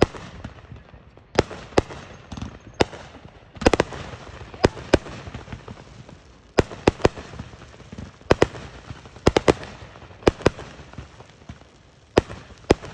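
Fireworks going off: a string of sharp, irregular bangs, some in quick pairs or short clusters, over a low rumble.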